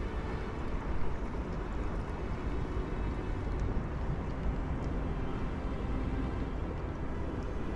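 Wind rumbling steadily on the camera microphone outdoors, a deep rough noise that rises and falls unevenly.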